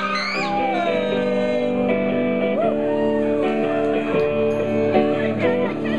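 Psych-folk band playing live: electric guitar chords with held notes ringing under a singing voice.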